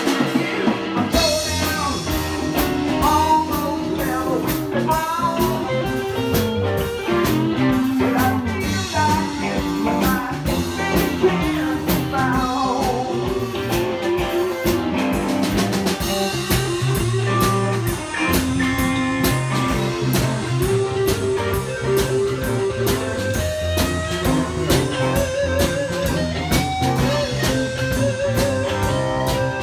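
Live band playing: two electric guitars, electric bass and drum kit, with a lead guitar line weaving over a steady beat.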